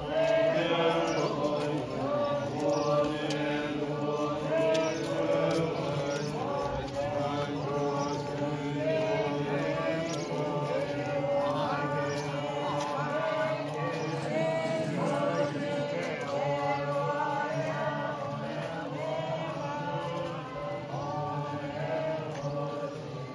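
A group of marchers, monks and lay people, chanting a Tibetan Buddhist prayer together as they walk. It is a steady, low, droning unison with a repeating melodic phrase.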